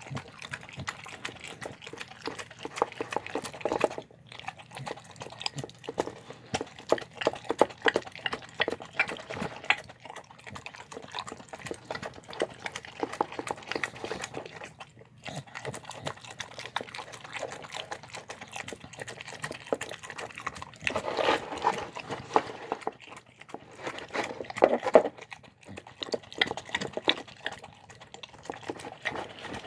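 A dog eating a soft, wet meal of chicken and steamed rice with dressing: continual wet chewing and smacking in an irregular run of short clicks, louder for a few seconds past the middle.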